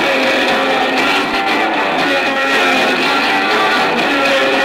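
Punk rock band playing live, electric guitar strumming chords at a steady level. It is an audience recording with a thin sound and almost no low end.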